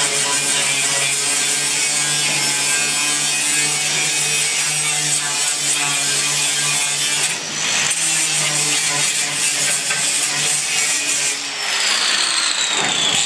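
Electric angle grinder with an abrasive disc grinding the steel floor of a pickup truck bed, a steady high grinding noise with two brief dips. Near the end its whine falls in pitch.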